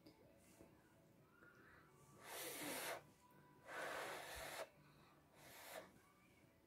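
A child slurping noodles off chopsticks: three airy slurps in the second half, the last one shorter and softer.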